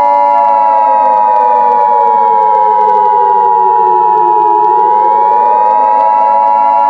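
Emergency Alert System attention signal: a loud, steady two-note electronic alarm tone. A siren sounds over it, sliding down in pitch for about four seconds and then winding back up.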